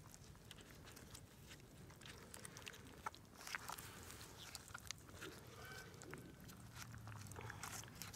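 Faint wet squelching and small clicks from gloved hands working through a dead piglet's opened body cavity.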